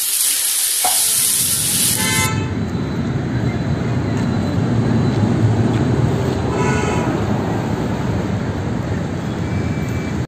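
Road traffic: a steady rumble of passing vehicles with two short horn toots, about two and seven seconds in. For the first two seconds a loud hiss of sizzling from a dosa griddle lies over it.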